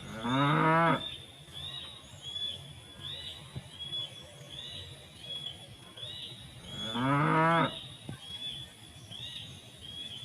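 A cow moos twice, each call lasting about a second, one at the start and another about seven seconds later. A faint high chirp repeats steadily in the background.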